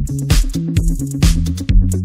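Electronic dance music with a steady drum beat and synth bass.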